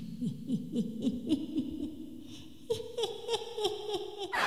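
Chihuahua whining eagerly in a run of short falling notes, about four or five a second, that jump higher in pitch a little under three seconds in.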